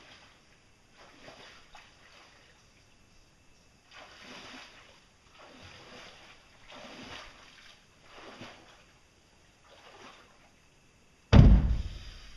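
A concrete block set down heavily on a boat, one loud low thump about a second before the end that dies away over about a second. Before it, faint scuffs and rustles of footsteps.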